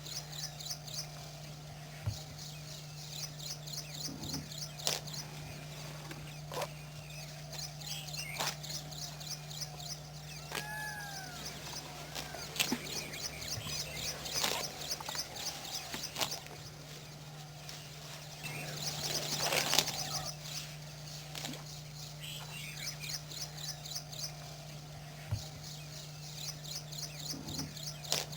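Outdoor nature sound: high, rapid chirping trills repeating again and again, with a couple of short whistled notes about ten seconds in, over a steady low hum.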